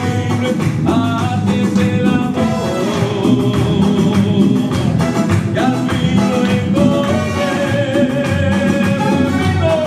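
Latin American song: a voice singing a melody over a steady beat and accompaniment.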